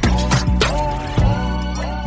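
Dance-pop music with no sung words: a pitched lead melody that slides in pitch over a beat of heavy drum hits.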